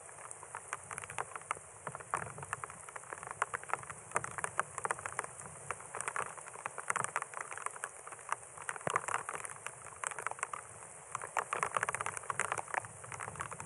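Rain falling steadily, with many close drops striking in a dense, irregular patter of small ticks.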